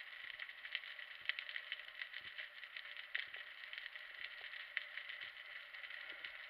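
Underwater ambience through an action camera's waterproof housing: a dense, irregular crackle of tiny clicks, typical of a rocky Mediterranean reef, over a faint steady whine, with a few soft low knocks.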